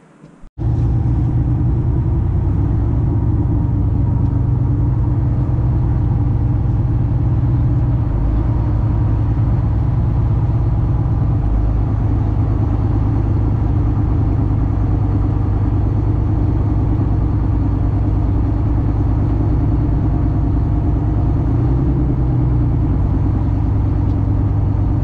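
Engine of a sport-fishing charter boat running steadily under way, loud and close from on deck, a low, even pulsing drone.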